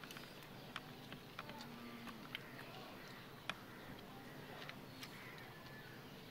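Scattered small clicks and crunches of people eating a puffed-rice mix by hand from a steel plate, with faint voices in the background.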